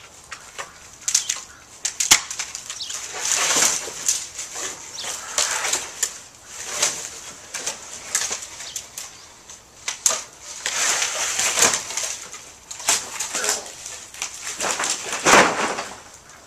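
Brush and dry twigs rustling and crackling in irregular bursts, with sharp snaps among them; the loudest burst comes near the end.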